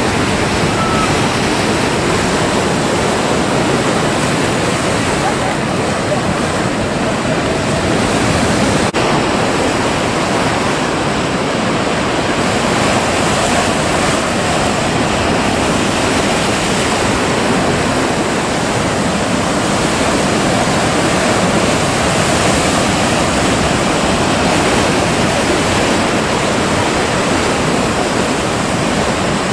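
Ocean surf breaking against a concrete harbour jetty: a continuous, even roar of waves and spray.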